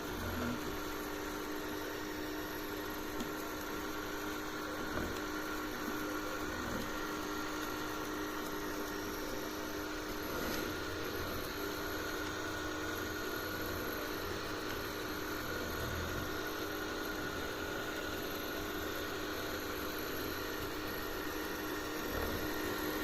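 Robot vacuum cleaner running, a steady mechanical whir of its motor with a constant hum.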